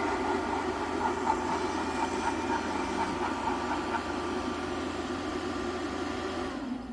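Spirit Halloween Harvester of Souls animatronic running after its spoken routine: a steady mechanical whir with a low hum and held tones. It winds down with a short falling pitch and cuts off near the end.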